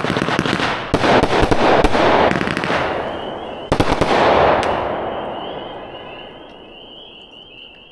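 Black Cat 'Gunfighters from Hell' 49-shot 500 g consumer firework cake firing its last shots: a sharp report about a second in and another near four seconds in, each followed by dense crackling. The crackle then dies away, leaving insects chirping steadily in the background.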